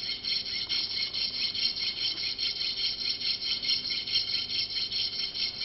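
A crush washer rubbed back and forth across a flat metal file by hand: a quick, even rasping at about five strokes a second. The washer is being filed thinner so the A2 birdcage flash hider lines up with its openings where they should be when tightened.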